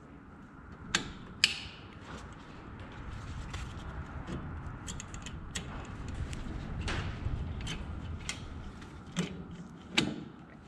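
Brake shoe return spring being stretched onto the anchor pin of a 1966 Ford Mustang's 9-inch front drum brake with a brake spring tool. Metal scraping and creaking, with a few sharp metallic clicks: two about a second in, more near the end.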